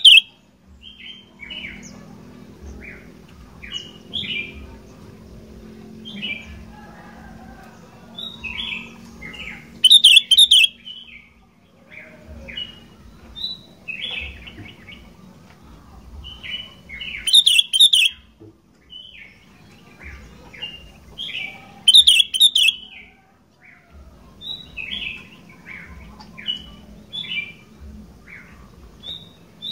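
Sooty-headed bulbul (kutilang) singing in a steady run of short chirpy whistled phrases. Louder, harsher calls break in every five to seven seconds, and a faint steady hum runs underneath.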